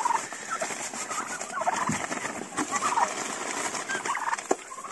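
Young Big 6 turkeys giving short calls several times, over the rustle and light patter of crushed shell grit being poured from a plastic sack into a plastic bowl.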